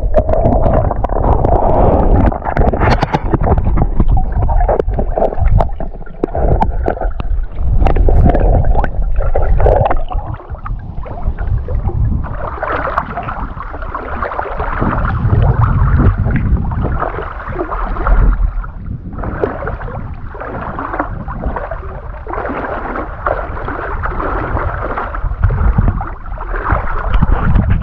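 Lake water splashing and gurgling right at a camera held at, and at first just under, the surface while a swimmer moves through shallow water toward the shore, with heavy low rumble on the microphone.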